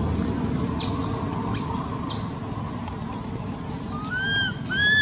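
High-pitched animal calls: two quick squeaks that slide sharply downward in the first two seconds, then, near the end, a run of arched whistling cries that rise and fall, over a steady rushing background.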